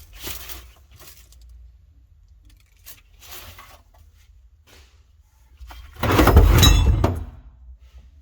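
A few faint knocks and scrapes, then about six seconds in a loud clatter of metal parts, about a second long, with a ringing metallic jingle.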